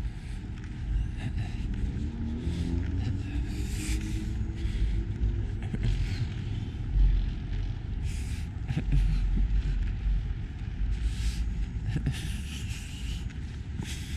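Night street ambience: a steady low rumble of traffic, with a vehicle engine rising in pitch about two to three seconds in, and light footsteps on the pavement.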